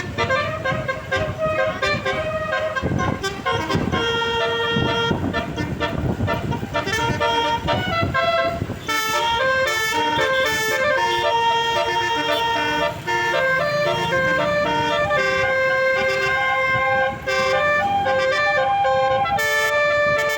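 Indonesian intercity bus's basuri horn, a multi-tone electric horn, playing a melody note by note, with each pitch held and then stepped to the next. A low rumbling noise sits under the notes for roughly the first half.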